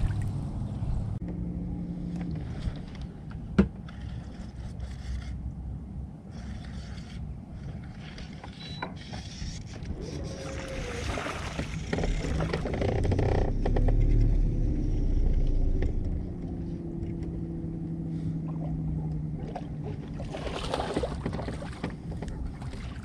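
Bass boat on the water with the low hum of an electric trolling motor that comes and goes, over water and wind noise, which swell louder midway. A single sharp click about three and a half seconds in.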